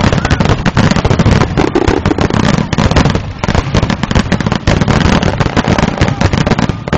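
Aerial firework shells bursting in rapid succession: a dense barrage of overlapping bangs and crackling with no pause.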